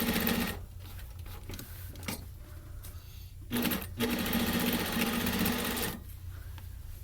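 Hakari sewing machine stitching in two runs: a short one at the start, then a longer run from about three and a half seconds in to about six seconds, with its motor giving a steady hum. Quieter handling of the fabric between the runs.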